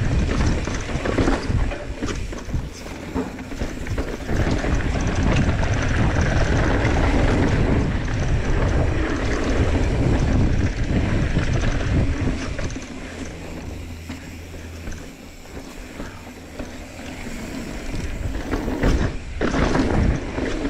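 Wind rushing over the microphone, with a mountain bike's tyres rolling fast over dirt and loose gravel and the bike rattling over bumps. It eases off for a few seconds about two-thirds of the way through, then picks up again near the end.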